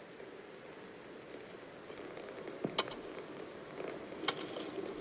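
Faint, steady sizzling hiss of electrical discharge with sharp crackles, heard about halfway through and again near the end.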